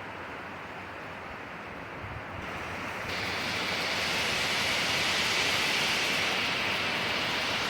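Wind blowing through pine trees, a steady rushing hiss that swells into a stronger, brighter gust about three seconds in and holds there. The recording is edited to alternate between left and right for bilateral stimulation.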